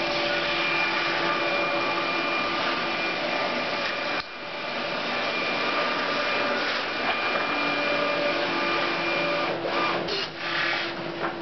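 Memjet SpeedStar3000 inkjet label printer running a continuous print job: a steady whirring hiss with constant whine tones as label stock feeds through, with a brief dip about four seconds in.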